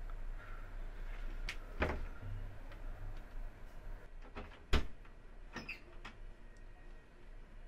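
A few scattered knocks and clicks over a low steady hum, the sharpest knock coming a little under five seconds in.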